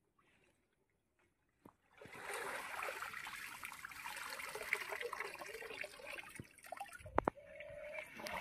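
Water trickling and splashing off a clump of water hyacinth as it is pulled up out of a pond, its roots streaming water, starting about two seconds in. A single sharp knock near the end.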